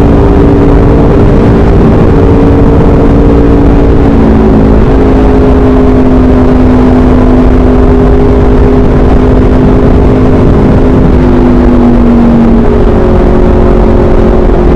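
Motorcycle with an SC Project aftermarket exhaust running at a fairly steady cruise, its engine note shifting slightly in pitch a few times.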